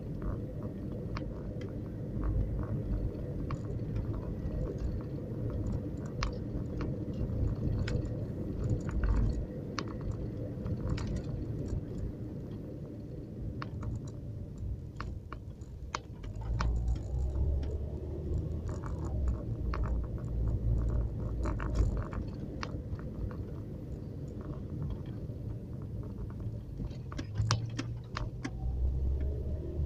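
Car cabin noise while driving: a steady low rumble of engine and tyres on the road, with frequent small clicks and rattles from inside the car, bunched together near the end.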